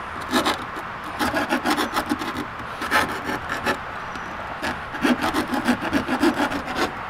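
Hand file rasping back and forth on the ragged edge of a freshly cut hole-saw hole, deburring it. Quick strokes come in two runs with a short pause in the middle.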